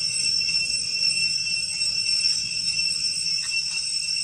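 Insect chorus in the forest: a steady, high-pitched drone that holds several pitches at once without a break.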